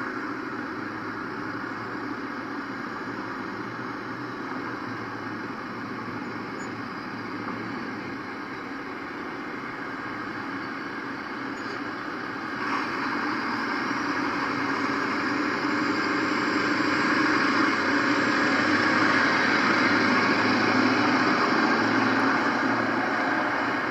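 Street traffic: the steady run of vehicle engines and tyres, becoming suddenly louder about halfway through.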